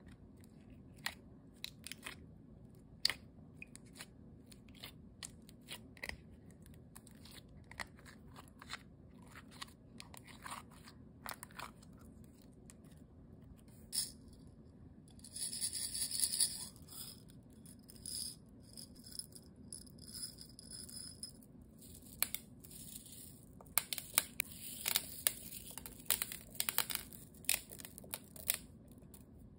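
Slime being handled in a clear plastic bowl, making scattered sticky clicks and crackles. About halfway through comes a short rattling pour of small beads shaken from a plastic container. Near the end there is dense crackling as fingers press and pull the slime.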